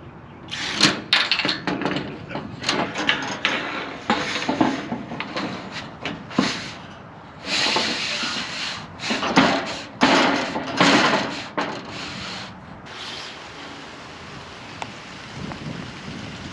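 Irregular scraping, rubbing and knocking of building materials being handled and slid into place, with a few sharp knocks. The handling stops about three-quarters of the way through, leaving a steady hiss.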